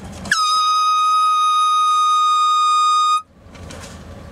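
Air horn blasting one long, loud, steady high note for about three seconds, sagging slightly in pitch as it starts and cutting off sharply.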